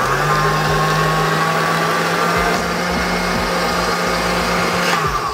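Smeg stand mixer's motor driving its wire whisk through cream. It spins up at the start, runs steadily, then winds down and stops about five seconds in.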